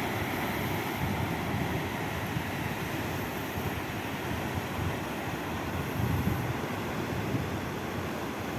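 Wind buffeting the microphone, with gusty low rumbles over a steady rushing noise.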